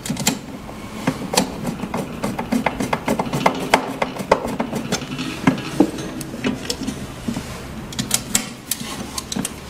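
Screwdriver clicking and scraping as it turns a screw into the cover of a 3D sublimation vacuum machine, with the cover knocking under the hand: a quick, irregular run of small clicks and taps.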